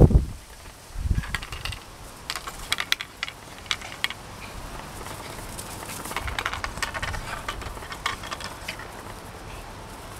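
Small dogs running over grass after a flirt-pole lure: scattered rustling and light patters of paws and lure on the lawn, with a few soft thumps.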